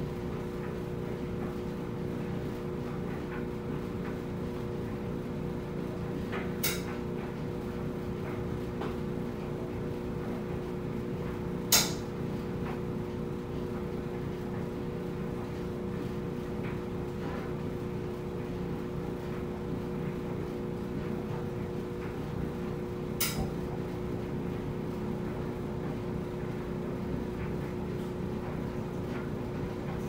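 Front-loading clothes dryer running, its drum turning with a steady hum and low rumble under a constant two-note whine. Three sharp knocks break it, the loudest about twelve seconds in.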